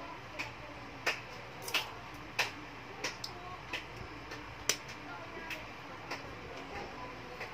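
A series of sharp ticks, roughly three every two seconds and fairly regular, over a low steady hum.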